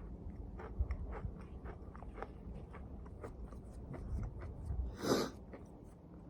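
A person chewing a Takis rolled corn tortilla chip, a string of short crisp crunches, with a brief louder rush of noise about five seconds in.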